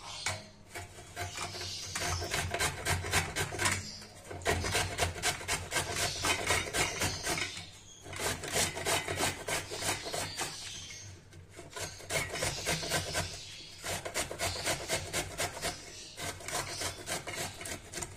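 Raw bottle gourd being grated on the coarse holes of a stainless steel box grater: quick rasping strokes in runs of a few seconds, broken by short pauses as the piece is shifted.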